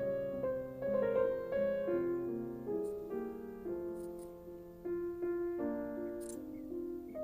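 Background instrumental music: a slow melody of held, overlapping notes.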